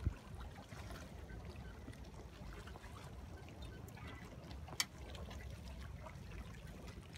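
Water trickling and lapping around a boat over a low, steady rumble, with a sharp knock right at the start and a short click nearly five seconds in.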